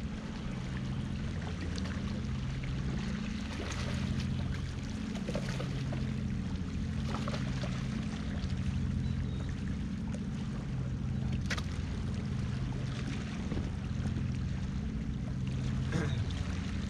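Sea water washing and lapping against shoreline rocks, with a low rumble of wind on the microphone and a couple of short sharp clicks.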